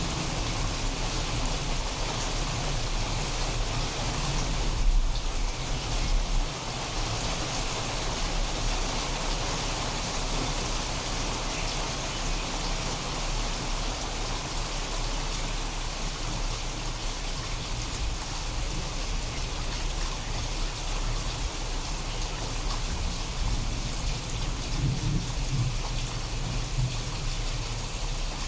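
Steady rain falling, with a low thunder rumble that swells about five seconds in and dies away soon after.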